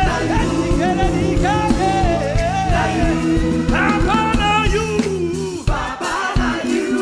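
Upbeat gospel praise music: a live band with singers holding and sliding long notes over a steady beat, the bass and drums dropping out briefly near the end before coming back in.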